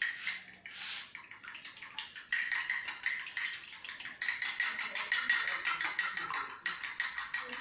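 A fork beating an egg in a ceramic mug: fast, rhythmic clinking of metal against the mug, each stroke ringing the mug at the same high pitch, getting louder and steadier about two seconds in.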